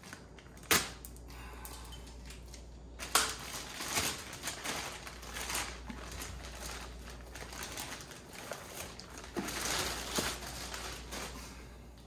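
Clear plastic bag crinkling and rustling as it is worked off a turbocharger, with two sharp clicks in the first few seconds.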